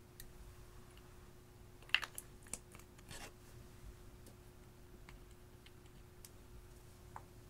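Light plastic clicks and taps of makeup bottles and caps being handled, with a cluster of clicks about two seconds in and a single click near the end.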